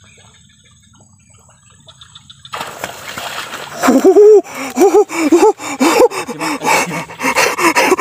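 Quiet for the first couple of seconds, then rustling through grass and reeds. From about four seconds in comes a run of short, strained groans from a person, each rising and falling in pitch, about two a second.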